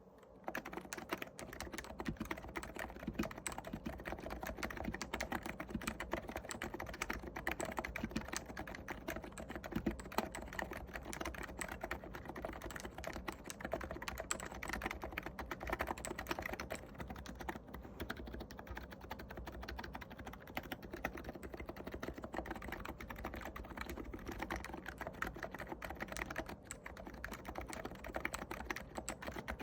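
Continuous fast typing on a Cox Endeavour tenkeyless keyboard with 50 g electrostatic capacitive (Topre-style) switches, lubricated stabilizers and tall SA-profile keycaps. The dense key clacks start about half a second in.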